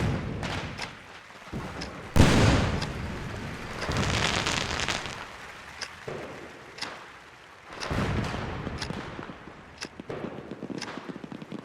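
Fireworks going off: several booms, the loudest coming suddenly about two seconds in, each fading out, with sharp crackling pops scattered between them.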